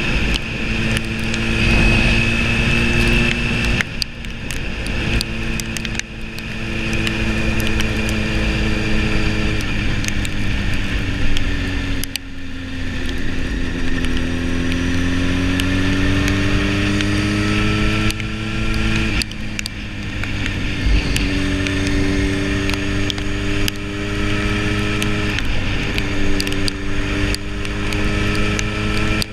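Motorcycle engine under way at road speed, with rushing wind noise. The engine note breaks and resets several times as the rider shifts gear, and about halfway through it climbs steadily for several seconds as the bike accelerates.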